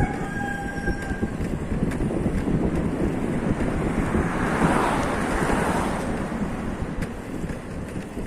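Steady rumble and wind noise of travelling along a road, swelling to its loudest about halfway through. A rooster's crow trails off in the first second.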